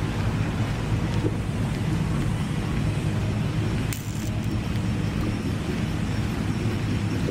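Steady low rumble of an engine, with a brief sharp click about four seconds in.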